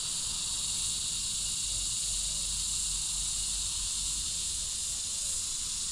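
A steady chorus of insects: a continuous high, shrill hiss that holds level without a break.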